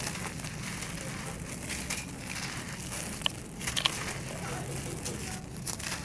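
Dry sandy clay being crumbled by hand, the loose grit crunching and trickling onto a pile of dry soil in a steady gritty crackle, with a couple of sharper cracks about halfway through.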